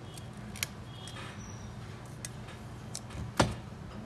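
A few sharp, separate clicks and taps, the loudest about three and a half seconds in, over a steady low hum.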